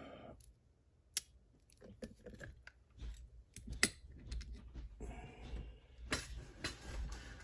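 Small metal clicks and clinks from a Mul-T-Lock 7x7 lock and its tools being handled on a bench, with a sharp click about a second in and a louder one near four seconds.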